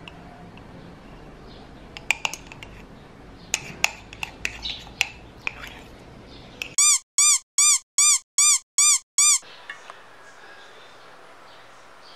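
Seven quick, identical squeaky chirps, each rising then falling in pitch, with dead silence between them: a squeak sound effect added in editing, and the loudest thing here. Before it, a few light clinks of a metal spoon against a ceramic mug as chocolate topping is poured and scraped out.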